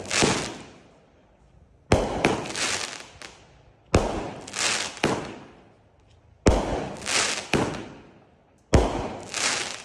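Bright Star 'Traffic Jam' 500 g firework cake firing single shots, four in all, about every two to two and a half seconds. Each shot is a sharp launch thump, followed about half a second later by the shell breaking into a crackling hiss that fades within a second or so.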